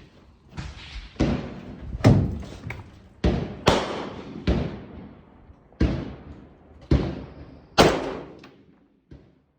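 A string of about eight rifle shots fired roughly a second apart, each sharp crack trailing off in a short echo, with a few fainter reports between them.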